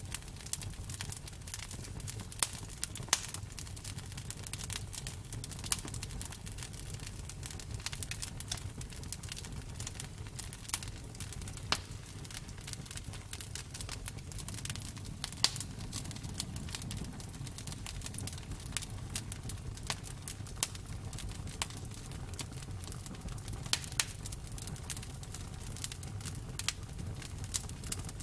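Campfire burning, with irregular sharp crackles and pops over a steady low rumble of the flames.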